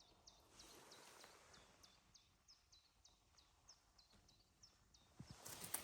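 Faint outdoor quiet with a short high chirp repeated about three times a second, and some rustling near the end.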